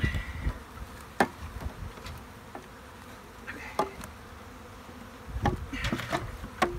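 Honeybees buzzing around an open hive, with several sharp knocks and clinks as metal cans are handled and lifted off the hive top, the loudest cluster near the end.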